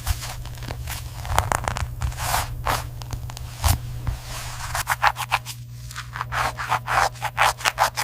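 A run of short scraping and snipping strokes over a steady low machine hum; the strokes come quicker after about five seconds.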